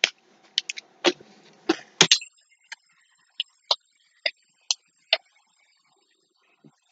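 A scatter of short, sharp clicks and light knocks at close range, about a dozen spread unevenly, with a few brief breathy sounds in the first two seconds.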